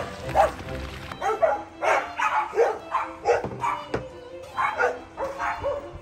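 A dog barking and yipping excitedly, a quick run of short pitched barks, about two or three a second, over background music.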